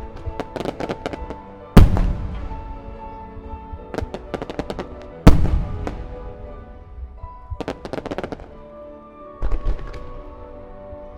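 Fireworks shells bursting in a starmine barrage: three big booms about two, five and nine and a half seconds in, each with a long rumbling tail, and quick runs of crackling pops between them. Music with held notes plays along underneath.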